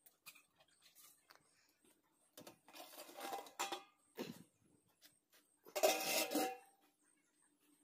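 Steel cookware handled: two bursts of metallic scraping and clinking with a ringing tone, the second and loudest about six seconds in, with a short dull knock between them.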